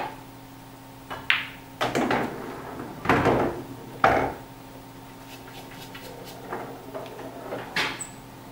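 Pool cue tip striking the cue ball with a sharp click, then about a second later a clack as the cue ball hits an object ball. The ball drops into a pocket and rumbles and thuds several times as it rolls down through the table's ball-return channel. Light ticks follow, and another sharp click comes near the end.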